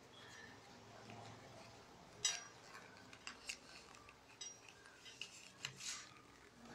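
Rolled paper tubes being woven between upright paper-tube spokes: faint, irregular light clicks and taps of paper against paper and the tabletop, starting about two seconds in.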